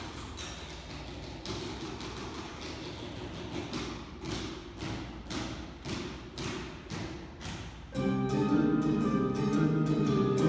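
Handbell ensemble playing a jazz swing piece. A quieter passage of short percussive strokes at about three a second runs over low bell tones, then about eight seconds in full ringing handbell chords come in, clearly louder.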